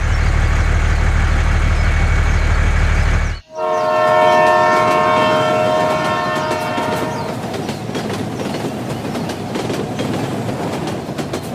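A steady low rumble, then about three and a half seconds in a train horn sounds a held chord for roughly four seconds and fades out, followed by the clatter of train wheels running over rail joints.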